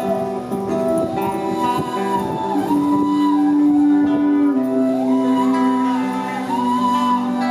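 Music: a melody with smooth sliding notes over held low notes and plucked strings.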